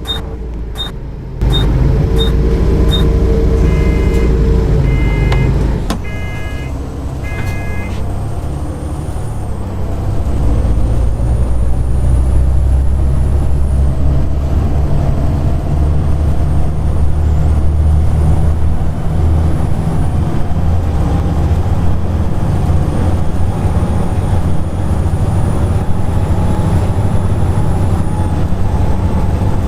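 Volvo B7TL double-decker bus with its diesel engine running and the loud, vacuum-cleaner-like whine known as its "hoover". The whine rises in pitch and drops off several times as the bus pulls away and drives. Near the start there are regular ticks, then four short beeps.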